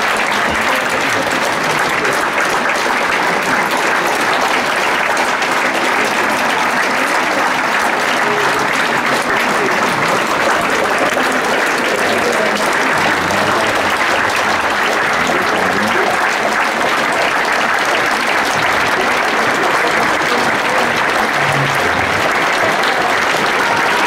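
Theatre audience applauding, a dense, even clapping that keeps up without a break.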